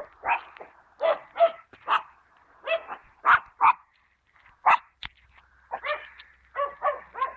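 Pet dog barking over and over, short sharp barks coming in quick runs of two or three with brief pauses between them.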